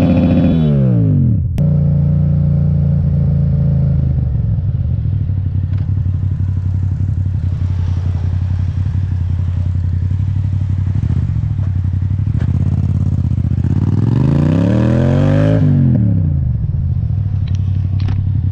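Motorcycle engine running on the road. Its pitch falls as it slows at the start, with a sharp click about a second and a half in. It then runs steadily, rises on the throttle and drops back again around fourteen to sixteen seconds in.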